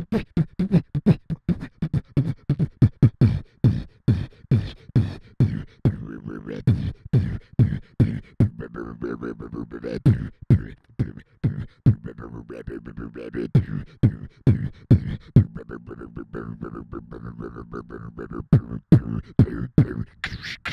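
Solo beatboxing into a handheld microphone: fast percussive mouth sounds, and from about six seconds in a steady low hummed bass tone runs under the beat.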